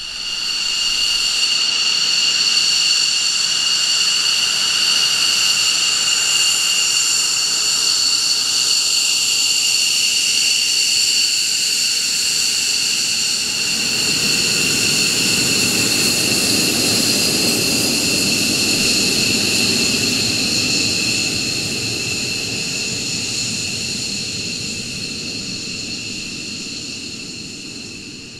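McDonnell Douglas F-15 Eagle taxiing past, its twin turbofan engines giving a steady high whine in several tones. A deeper rumble joins as the jet passes close about halfway through, then the sound fades as it moves away.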